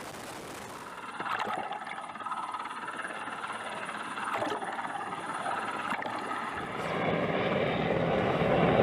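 Helicopter running, a steady rotor and engine noise that grows louder over the last couple of seconds.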